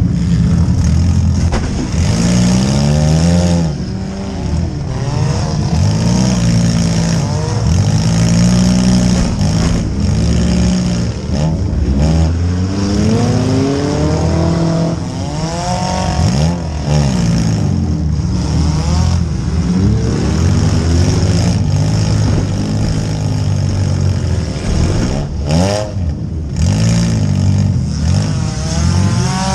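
Compact demolition-derby car's engine revving hard and easing off again and again, its pitch climbing and falling every second or two, heard from inside the stripped cabin.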